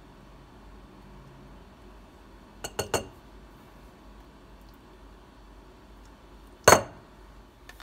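A metal spoon clinking against a ceramic bowl as spoonfuls of pumpkin puree are knocked off into it: three quick clinks about three seconds in, and one louder clink near the end.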